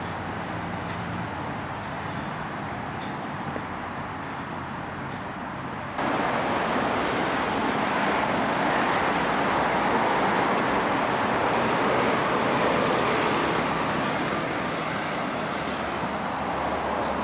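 Outdoor city ambience that jumps suddenly louder about six seconds in to steady road traffic: cars and vans passing on a busy boulevard.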